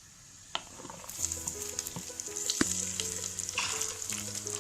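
Sliced onions sizzling and crackling in hot coconut oil in a clay pot as they are stirred. The sizzle starts about a second in, with sharp knocks of the spoon against the pot.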